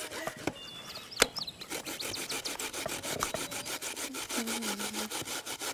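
Potatoes being cut into thin strips on a wooden cutting board: a fast, even run of strokes, about six a second.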